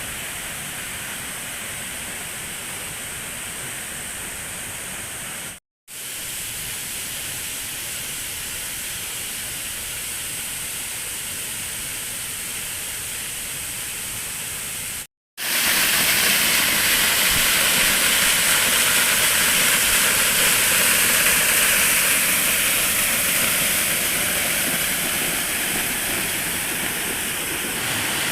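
Steady rushing of a waterfall, broken by two brief cuts about six and fifteen seconds in; after the second cut it is louder and brighter.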